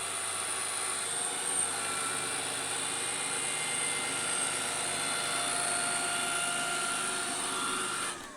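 Bralko Galaxy robot vacuum running on carpet in spot mode, its suction fan and brushes making a steady whine. Near the end the whine falls in pitch and the machine winds down.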